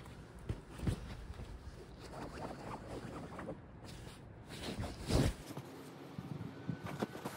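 Small dog playing tug and chewing on a sock toy on soft bedding: irregular rustling and scuffling of fabric with a few knocks, and the loudest scuffle about five seconds in.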